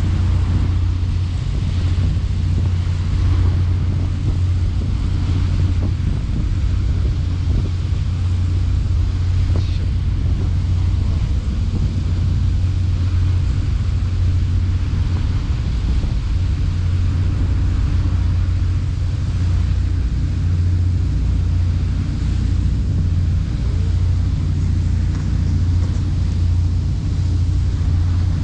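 Boat engine running with a steady low drone, with wind noise on the microphone.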